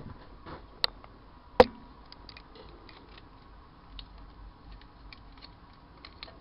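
Small plastic soy sauce packets being handled and set down inside a microwave: two sharp knocks about a second in, then faint scattered ticks and crinkles.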